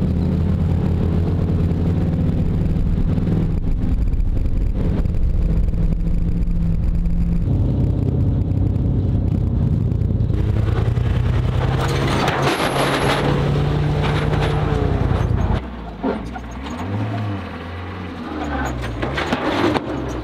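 Off-road vehicle engine running hard while driving over rough ground, its pitch stepping up and down with the throttle. About three-quarters of the way through it drops quieter to a wavering low drone.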